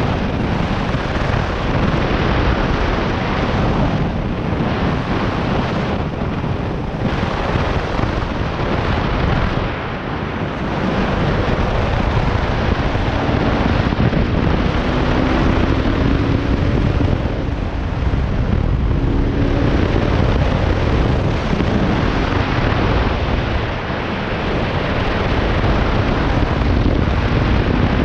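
Bajaj Pulsar RS200's single-cylinder engine and exhaust running under way, mixed with heavy wind buffeting on the microphone.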